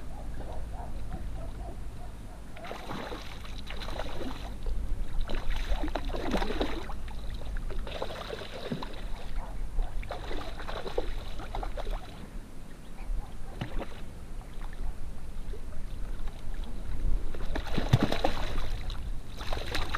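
A hooked trout splashing and thrashing at the surface as it is played in to the landing net, in short bursts every second or two, the biggest splash near the end as it comes over the net. A low steady wind rumble on the microphone runs underneath.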